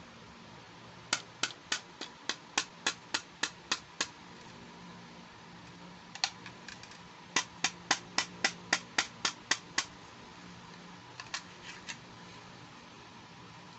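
Sharp, quick clicks or taps from handling during a toy unboxing, about three or four a second, in three runs: two long ones and a short one near the end.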